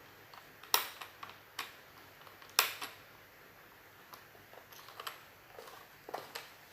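Hard plastic clicks and taps from hands fiddling with and twisting parts of a LOL Surprise toy's plastic puzzle package, two sharp clicks louder than the rest about a second and two and a half seconds in.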